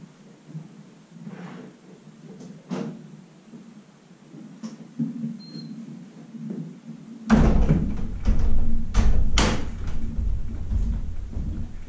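Wooden knocks and bangs in a horse barn: a few light knocks, then from about seven seconds in a loud low rumble with several sharp bangs.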